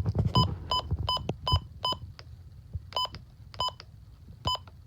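Midland WR-120 weather radio's key-press beeps as its menu buttons are pressed: short electronic beeps, a quick run of about six in the first second and a half, then three more spaced out. Soft thumps from the buttons and handling sit under the first run.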